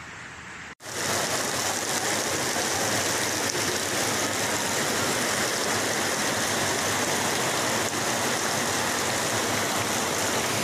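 Fast-flowing muddy floodwater rushing in a loud, steady torrent, cutting in abruptly about a second in after a quieter stretch of flowing water.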